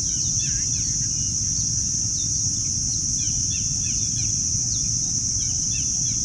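Outdoor nature ambience: a steady high-pitched insect drone, like a chorus of crickets or cicadas, with birds chirping in many short, quick, falling calls over it and a steady low rumble underneath.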